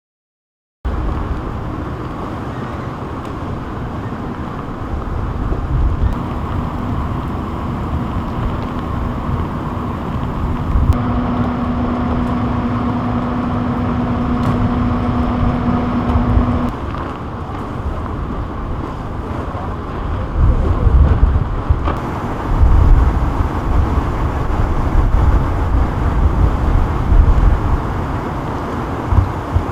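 City street traffic noise: vehicle engines running and passing, with a steady low hum through the middle and heavier low rumbles in the second half.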